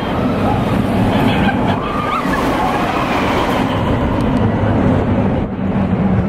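Mine-train roller coaster rumbling and clattering along its track at speed, heard from a seat in the moving car with wind on the microphone.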